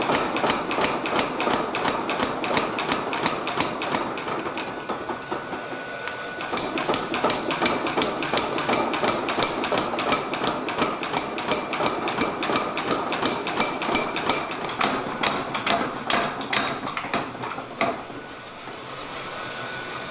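A 500 lb Bradley power hammer striking a hot steel swage block in a rapid, steady run of blows. The blows stop about two seconds before the end, leaving the machine's lower running noise.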